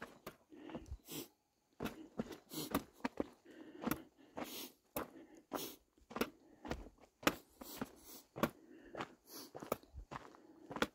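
A hiker's footsteps crunching on a dirt and gravel trail, about two steps a second, at an even walking pace.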